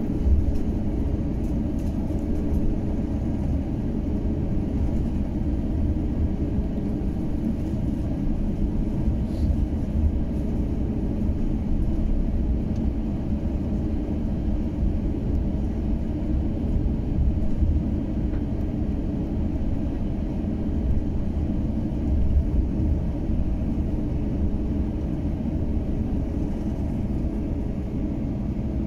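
Steady low cabin rumble inside an Airbus A350-900 taxiing to the runway, with engine and airflow noise at an even level.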